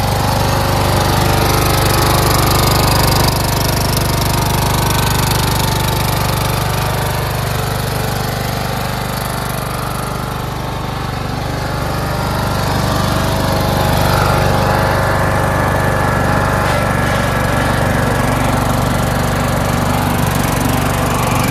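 Craftsman LT1000 lawn tractor's engine running steadily, growing a little quieter in the middle and picking up again.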